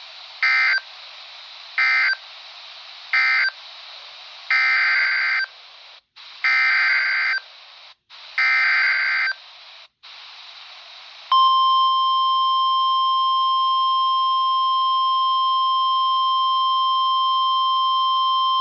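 NOAA Weather Radio alert signalling through a RadioShack 12-254 weather radio's speaker, over a faint static hiss. First come three short SAME end-of-message data bursts, then three longer SAME header bursts for the next warning. About eleven seconds in, the steady 1050 Hz warning alarm tone starts.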